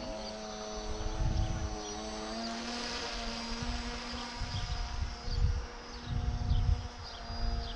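Small model aeroplane's motor and propeller buzzing overhead, a steady drone that shifts in pitch a few times as it flies. Gusts of wind rumble on the microphone in the second half.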